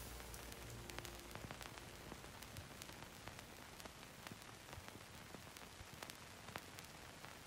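Faint background music fades out about a second in, leaving faint static hiss scattered with crackles.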